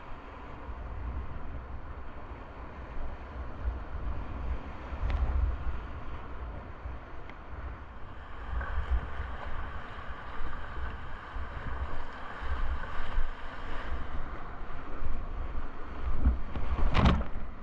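Whitewater rapids rushing, with wind gusting on the microphone, and one sharp, loud burst near the end.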